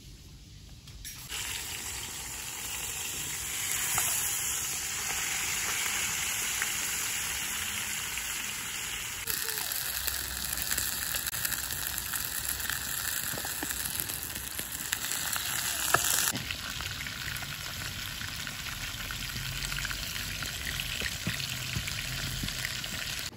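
Stuffed fish sizzling as it fries in oil in a frying pan. The sizzle starts about a second in and shifts in level abruptly twice.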